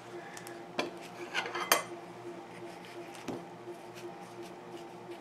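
A spoon clinking and scraping as it digs into a baked pot pie, in a few sharp clicks, the loudest cluster about a second and a half in.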